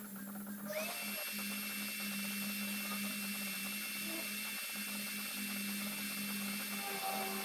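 TIG welding arc struck on steel exhaust tubing about a second in, then held as a steady hiss with a thin high whine over a constant low hum.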